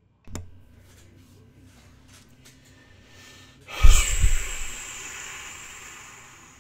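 A short click, then about four seconds in a loud breathy exhale blown straight into the microphone, a heavy sigh or snort with a thump of breath on the mic, that trails off over about two seconds.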